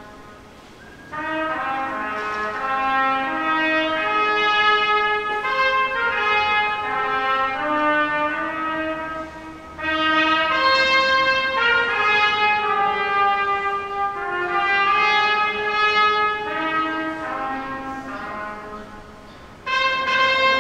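Brass music playing a slow, stately melody in long phrases of held notes, with short breaks about a second in, at about ten seconds, and near the end.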